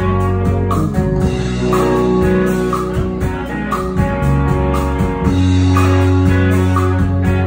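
Live bar band playing: electric guitars and bass guitar over a drum kit keeping a steady beat.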